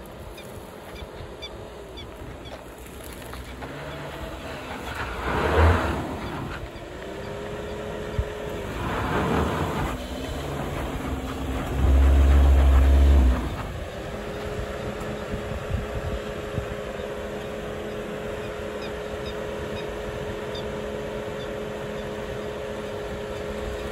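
Suzuki Jimny's 1.5-litre four-cylinder petrol engine working up a rutted sandy climb, its revs rising and falling, with two brief surges of noise as the tyres scrabble for grip. A loud low rumble follows for about a second and a half, and then the engine settles to a steady drone.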